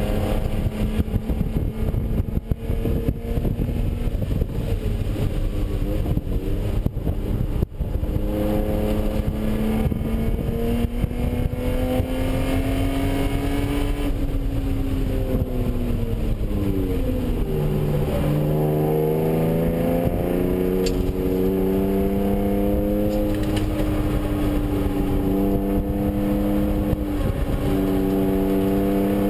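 BMW E36 M3's straight-six engine heard from inside the cabin while being driven hard on a race track, with wind and road noise. The pitch climbs for several seconds, falls away for a few seconds about halfway through, then pulls up again, with a brief drop near the end.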